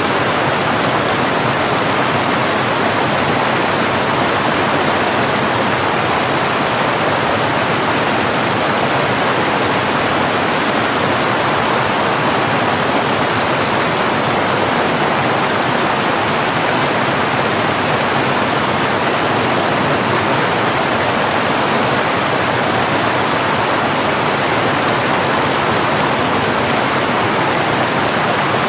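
Steady rushing of running water, an even, unbroken wash with no separate splashes or drips.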